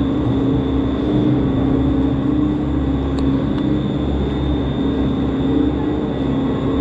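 Gondola lift station machinery running: a steady mechanical hum with a low drone and a constant mid-pitched tone while cabins circle slowly around the overhead bullwheel.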